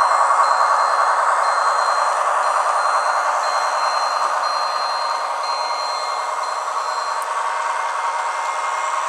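Zimo sound decoder in a model of the ČSD M 262.101 diesel railcar playing its diesel engine running sound through the model's small speaker, thin and without bass. A high beep repeats about once a second and stops about three quarters of the way through.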